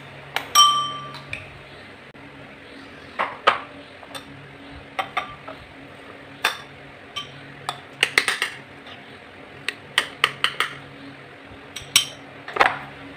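A metal spoon clinking and scraping against glass tumblers and a cut-glass bowl as mashed dragon fruit is spooned into the glasses. One clear ringing glass clink comes about half a second in, followed by scattered light taps and clicks.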